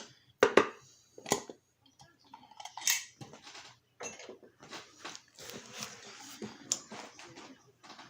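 Small metal lock parts and tools clicking and clinking as the challenge lock is being worked on, with scraping and rustling between a few sharp clicks.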